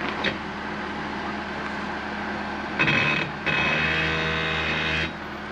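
Land Rover LR2's 3.2-litre straight-six running as the SUV crawls slowly over rocky trail. Past the middle it gets louder for about two seconds, with a steady high whine over the engine note, then settles back.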